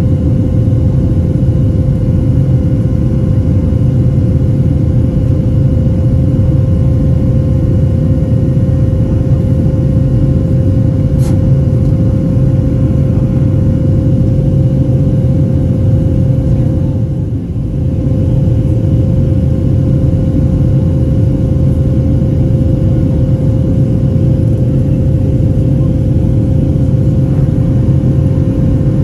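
Steady drone of an airliner's jet engines heard inside the passenger cabin: a deep, even rumble with a constant hum over it. It dips briefly about two-thirds of the way through.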